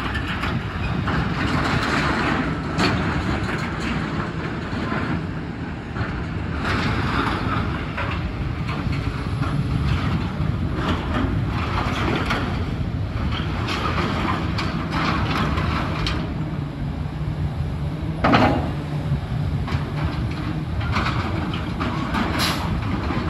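Hydraulic excavator's diesel engine running under load as it tears apart a building, with repeated crunching and scraping of torn metal roofing and debris. A loud crash comes about eighteen seconds in.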